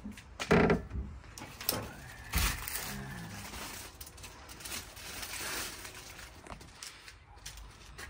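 A few knocks and one heavier thump in the first few seconds as items are handled in a pickup's cab, then rustling of plastic packaging that fades toward the end.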